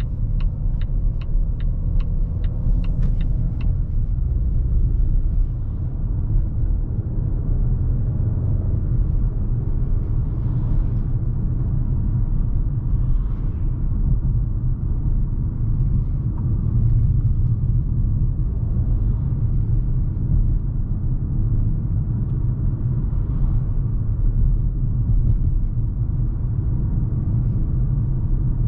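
Steady low in-cabin rumble of a 2020 Volvo V60 T5 Cross Country driving, engine and road noise from its 2.0-litre turbocharged four-cylinder and tyres. For the first three seconds or so a run of even ticks, about three a second, from the turn signal, with a faint rising engine tone as the car pulls away from the turn.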